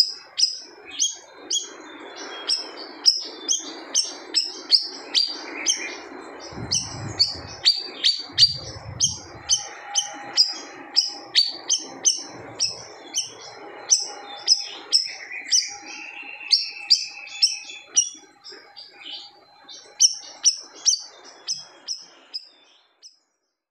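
Siri-siri bird singing in a long rapid series of sharp, high chirps, about two a second, broken off shortly before the end. Two brief low rumbles sound underneath about seven and nine seconds in.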